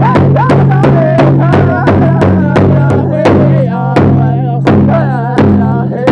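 Powwow drum group: several singers beating a big drum in a steady, even beat while singing high, wavering vocal lines together.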